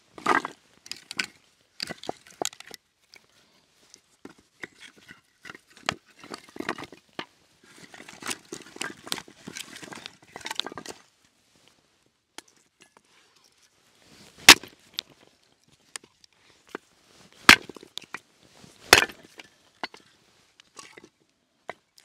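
Dry wood cracking and snapping as a wood fire is being lit: a stretch of irregular crackles and knocks, then three sharp loud snaps a few seconds apart.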